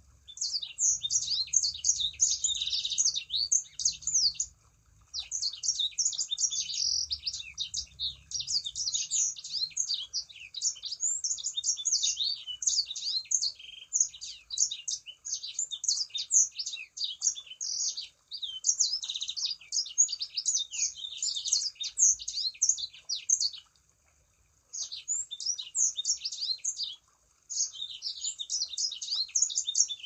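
Sanger songbird singing energetically (gacor): long runs of rapid, high chirps and twittering trills, broken by a few short pauses.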